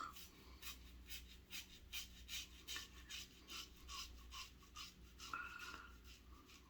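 Gillette Red Tip safety razor with a fresh Kai blade scraping through lathered stubble in many short, quick strokes, each a faint rasp.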